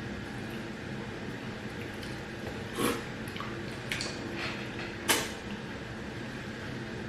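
Mouth and hand eating sounds of fufu and soup being eaten, over quiet room noise, with a few short sharp noises: one about three seconds in, a smaller one about four seconds in, and the loudest about five seconds in.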